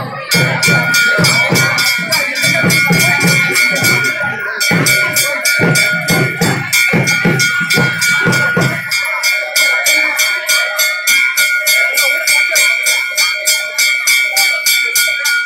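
Temple bell rung rapidly and steadily, giving quick, even metallic strokes over a sustained ringing tone. A low layer of other sound underneath it stops about nine seconds in.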